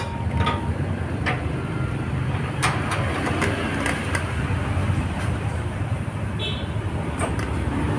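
Steady low hum and rumble of background noise, with a few faint clicks scattered through.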